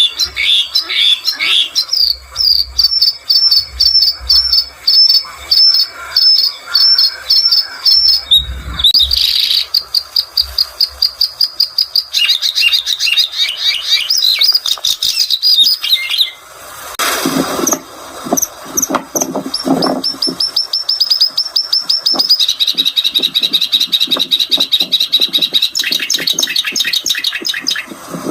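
Bluethroat singing a varied song of rapidly repeated high notes and trills, switching to a new phrase every few seconds. A harsher, lower-pitched burst of sound comes about 17 seconds in.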